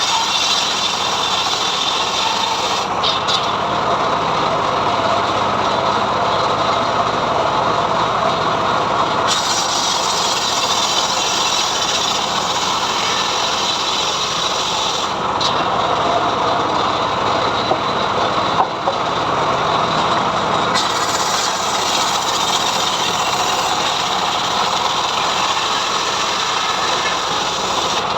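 A homemade engine-driven log sawmill running steadily as it rips a mahogany log lengthwise, a continuous engine and saw drone.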